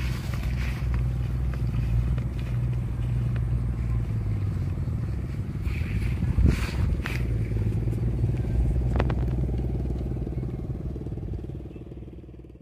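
A steady low mechanical hum like a small engine running, with a few short clicks and rustles; it fades out near the end.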